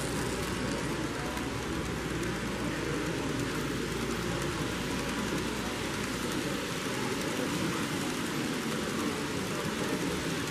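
Steady rushing noise of an N scale model passenger train rolling past close by on its track, mixed with the even background din of a busy exhibition hall.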